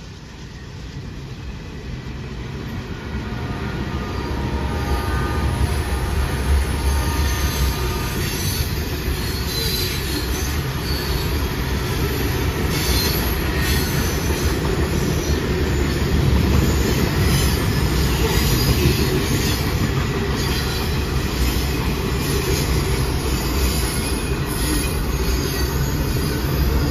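Freight cars of a CSX freight train rolling past a grade crossing: a steady rumble of wheels on rail that builds over the first few seconds. High squeals from the wheels come and go about a third of the way in.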